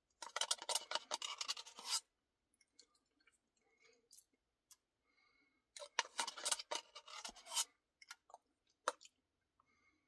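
Close-miked eating of a cookie Blizzard: a plastic spoon scraping and scooping in a paper cup along with chewing, in two crackly stretches of about two seconds each, one starting just after the start and one about six seconds in, with scattered small clicks between.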